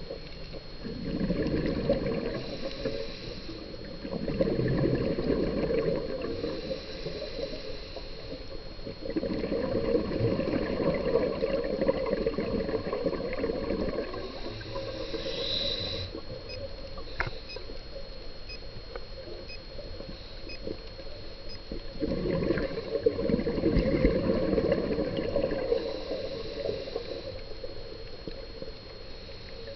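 Scuba diver's regulator breathing heard underwater: four long bubbling exhalations a few seconds each, some followed by a short higher hiss of inhaling, with a faint steady high tone throughout.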